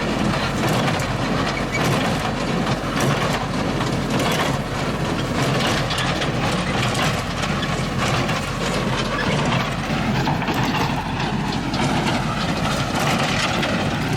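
International 784 tractor running under load with an International 440 square baler working behind it, a steady engine drone under a busy mechanical clatter.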